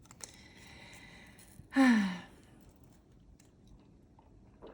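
A woman's short voiced sigh, falling in pitch, about two seconds in, after a second or so of faint hiss.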